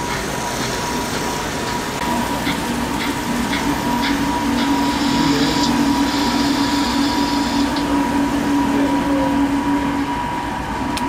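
OO gauge model steam tank locomotive running along the layout with a brake van: a steady hum with a few light regular clicks, over the busy background noise of an exhibition hall.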